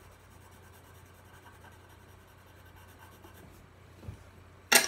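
Colored pencil shading lightly on paper, a faint soft scratching, then near the end a single sharp clack as the pencil is set down on the table beside the other pencils.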